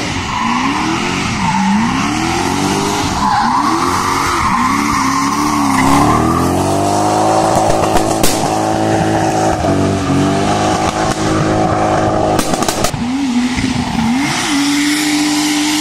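Drift car's engine revving hard, the pitch swinging up and down about once a second as the throttle is worked, then held high for several seconds before dipping and climbing again near the end. Tyres squeal and skid under it as the car slides sideways through the bend.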